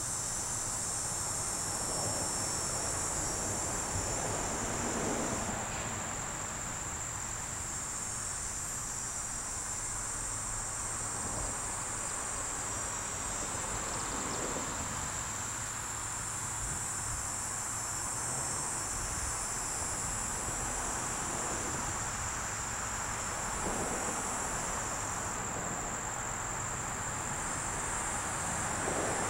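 A steady, high-pitched insect chorus over a soft, even background hiss.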